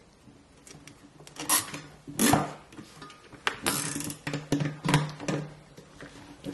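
Plastic cable ties being threaded and pulled through and around a pottery wheel's frame to hold on a plastic splash pan: several short scrapes and rubs of plastic, one drawn out a little longer just before the middle.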